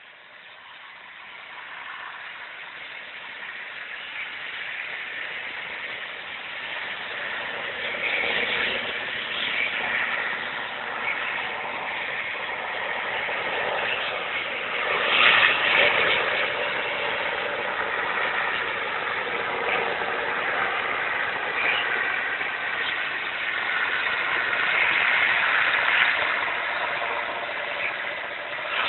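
Diesel locomotive hauling a long freight train, its engine running under load and growing louder as the train approaches, loudest about halfway through.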